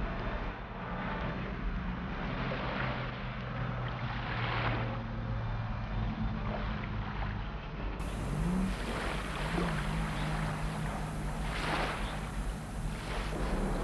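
Small waves washing on a sandy shore, rising in a few soft swells, over a low steady hum whose pitch shifts a couple of times.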